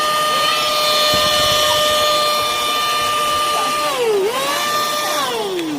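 REDBUZZ 2-in-1 cordless mini car vacuum's small motor running with a steady high whine. About four seconds in the pitch dips briefly and recovers, then near the end it winds down.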